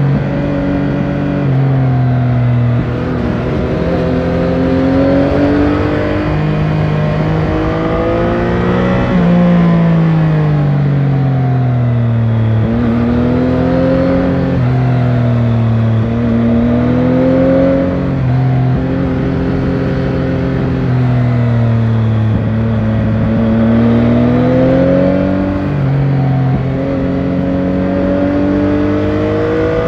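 Yamaha Tracer 9 GT's 890 cc CP3 inline-three engine with its stock exhaust, heard onboard while riding. The engine note rises and falls repeatedly as the bike accelerates and eases off, with steps in pitch between the climbs.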